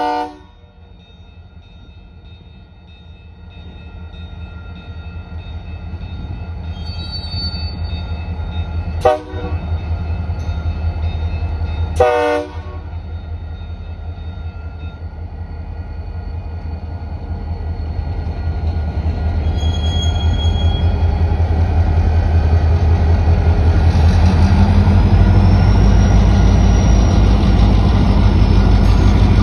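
Union Pacific diesel locomotives moving slowly over a grade crossing, their engines rumbling steadily louder as they come closer. A horn blast cuts off right at the start, and two short horn toots sound about nine and twelve seconds in.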